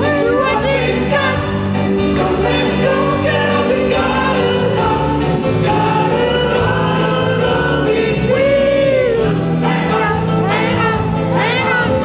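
Live rock 'n' roll vocal group: male singers harmonising over a backing band with keyboard, bass and drums.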